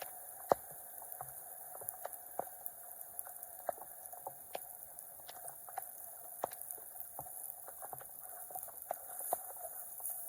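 Wet water sounds: irregular small clicks, drips and squishes over a faint steady trickle.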